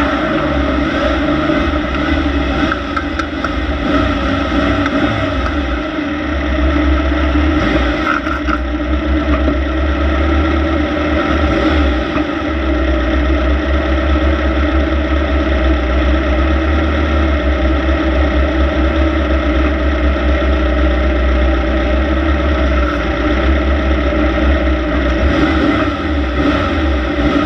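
Air-cooled 1600 cc VW-based engine of a Class 1600 off-road race car running hard at fairly steady revs, heard on board, with a heavy, uneven low rumble underneath.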